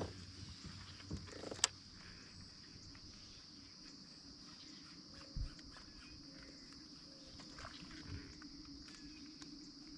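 Faint, steady high-pitched insect buzz, with a sharp click about a second and a half in and a soft low thump about halfway through.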